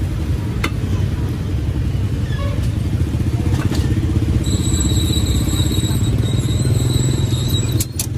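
Steady rumble of street traffic with motorbike engines running. A thin, high steady tone sets in about halfway and stops near the end, where there is a brief dip and a couple of sharp clicks.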